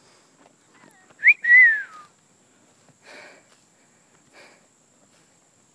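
A person whistling a two-note call about a second in: a short rising note, then a longer one sliding down in pitch. Two fainter, brief rustling sounds follow.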